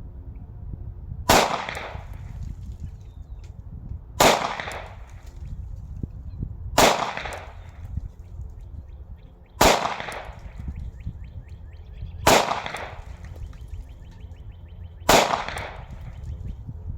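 Glock 43 9mm pistol firing six single shots at a slow, even pace, about one every three seconds, each a sharp crack with a short echo, over a steady low rumble.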